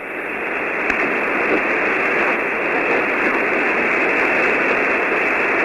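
Steady loud hiss of band noise from a ham radio receiver tuned to single-sideband on the 40-metre band, cut off sharply above the voice range; the other station's reply does not come through over it.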